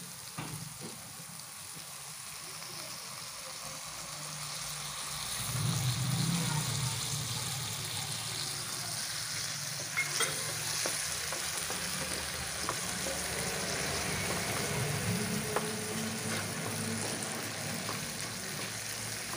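Chopped beetroot in spiced oil sizzling steadily in a frying pan as it is stirred with a wooden spatula. The sizzle grows louder about five seconds in, and the spatula gives a few light taps against the pan.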